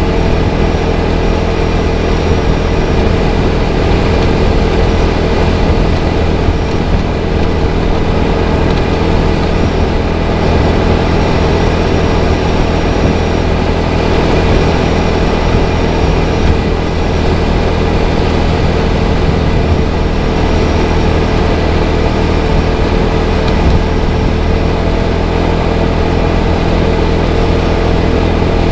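A 250 cc motorcycle engine running at a steady cruising speed, holding one unchanging note with no gear changes or revving.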